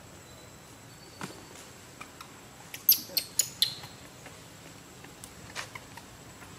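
Macaques making short, sharp, high squeaks: a quick run of four or five about three seconds in, with a few fainter ticks before and after.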